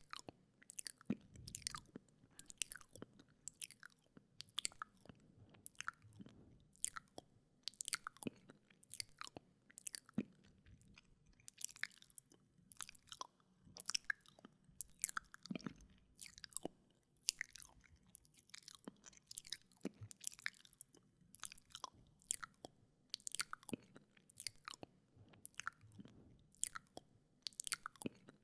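Wet mouth sounds close to the microphone: irregular tongue clicks, lip smacks and licking, several a second.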